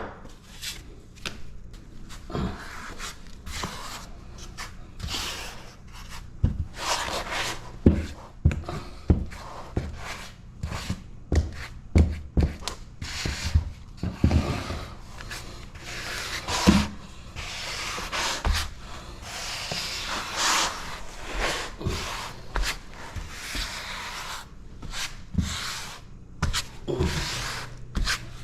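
Grout being spread and pressed into tile joints with a grout float: irregular scraping and rubbing strokes, with occasional sharp taps.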